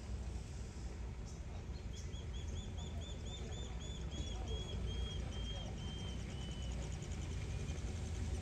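Vehicle engine idling with a low, steady rumble. From about two seconds in, a bird calls a long run of short, high notes that slow and drop slightly in pitch as they fade out.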